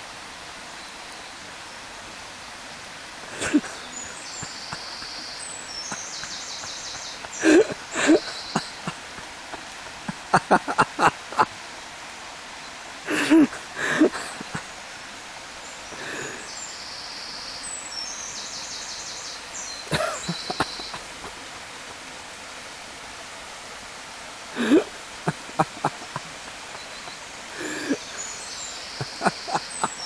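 Steady rush of a shallow burn flowing over stones, with scattered splashes and knocks, some in quick runs, from someone wading through the water.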